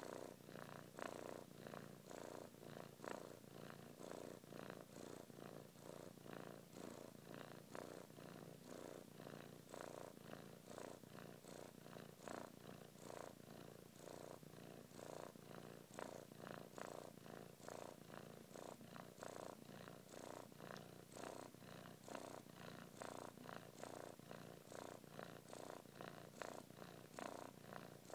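Kitten purring softly and steadily, the purr pulsing in a regular rhythm a little under twice a second.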